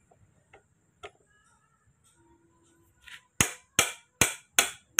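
A few faint clicks of gearbox parts being handled. Then, about three seconds in, a steady run of loud, sharp hammer strikes begins, roughly two or three a second.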